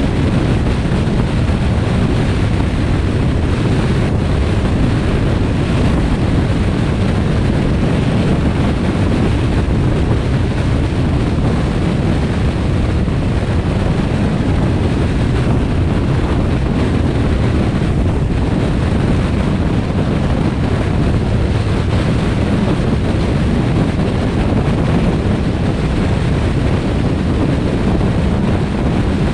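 Steady wind rush on the microphone with the tyre and road noise of a car driving along a highway, deepest and loudest at the low end, with no change in level.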